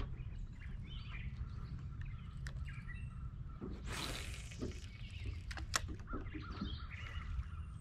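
Birds chirping over a steady low rumble. A broad whooshing sweep comes about four seconds in, and a sharp click, the loudest sound, follows near six seconds.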